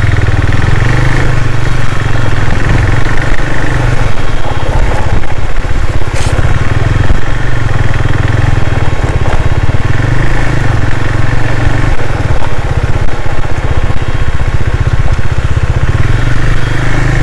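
KTM 390 Duke's single-cylinder engine running steadily under way, a continuous low, pulsing exhaust note.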